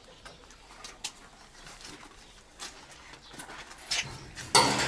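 Faint handling clicks, then near the end a loud, noisy rattle and scrape of a metal hook rack against a corrugated steel sheet wall.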